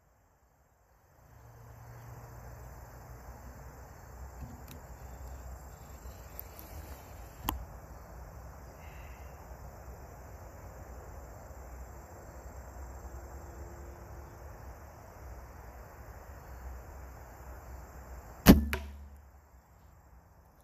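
A bow shot from a Hoyt bow near the end: one sharp, loud snap as the string is released, with a brief low ring after it. Before it there is only faint steady outdoor background and a few small clicks.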